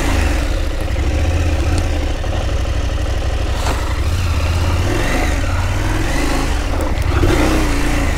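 KTM 890 Adventure's parallel-twin engine running at low speed as the bike is ridden through a bog, its pitch rising and falling with the throttle.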